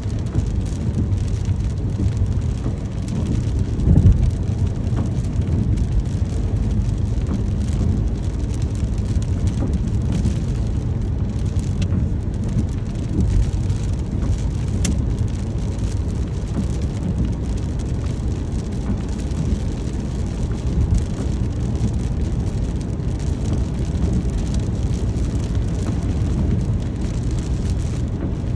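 Steady rain falling, its sound heaviest in the low end, with one brief louder thump about four seconds in.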